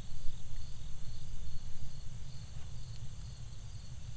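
Insects chirping steadily: a high continuous trill with a second, lower chirp pulsing about three times a second. Under them is an uneven low rumble, which is louder than the insects.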